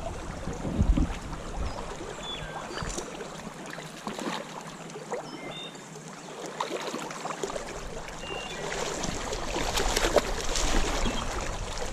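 Creek water running steadily, with scattered splashes and knocks close up as a hooked trout is fought on a fly rod.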